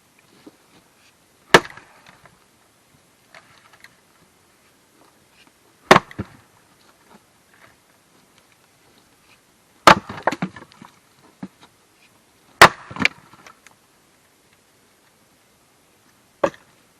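Axe blows striking a firewood block: five sharp strikes a few seconds apart, the middle two followed by short cracking and clattering as the wood splits.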